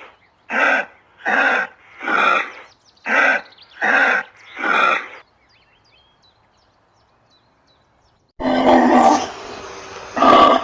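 An animal gives a run of short, harsh grunting calls, seven of them spaced about two-thirds of a second apart, then stops. A few seconds later a different, louder animal sound begins.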